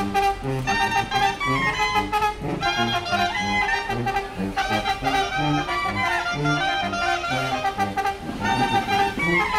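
Street brass band playing a lively tune: trumpets and other horns carry the melody over a tuba bass line that steps from note to note.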